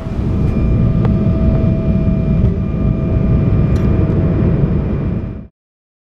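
An engine running close by: a loud low rumble with a steady high whine over it, cut off abruptly near the end.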